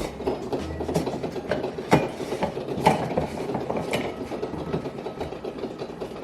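Continuous mechanical rattling and clattering, with sharp clicks or knocks about once a second.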